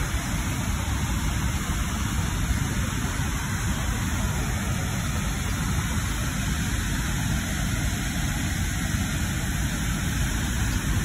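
Steady roar of whitewater rushing through a narrow rock canyon, with a deep rumble underneath.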